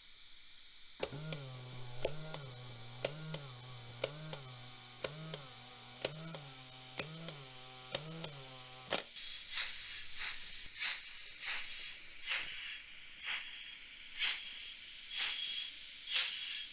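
Fleischmann N-scale model railway turntable turning with a locomotive on its bridge. Its drive hums steadily, the pitch lifting about once a second, with small sharp clicks about twice a second. About nine seconds in the hum cuts off, and a series of soft, high hissy pulses follows, roughly one a second.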